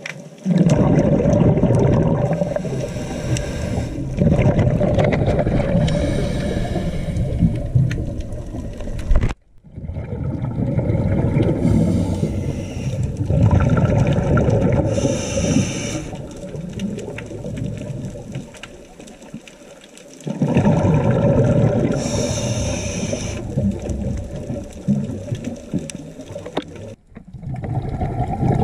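Muffled underwater noise picked up by a diver's camera in its housing: low rumbling and bubbling of exhaled air and water moving past, in long stretches broken by two brief dropouts, with short hissing at times.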